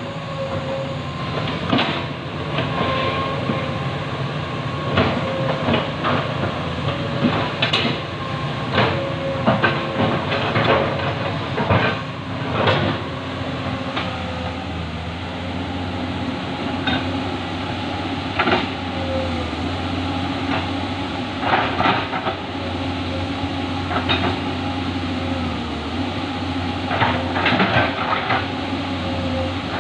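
Komatsu PC200 hydraulic excavator's diesel engine running steadily under load, with irregular clanks and knocks from its steel crawler tracks and bucket as it hauls itself through a muddy river bed. The rush of the flowing river sits underneath.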